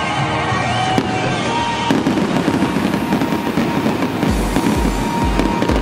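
Aerial fireworks going off, with continuous crackling and sharp bangs about one and two seconds in, over music; a steady low bass beat of about two per second comes in near the end.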